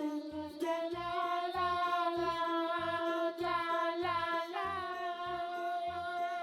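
Background children's song: a sung voice holds long, steady notes over an even bass beat.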